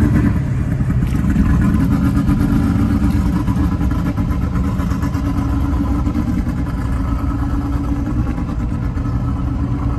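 Steady low drone of a pickup truck driving, engine and road noise heard from inside the cab.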